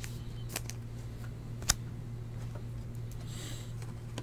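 Glossy trading cards being handled and flipped through by hand: two sharp clicks as cards snap against each other, the second just under two seconds in, and a soft slide of card on card a little past three seconds, over a steady low hum.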